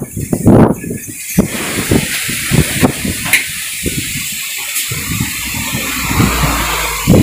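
Strong wind blowing with a steady whooshing hiss, broken by loud gusts buffeting the microphone at the start and again near the end.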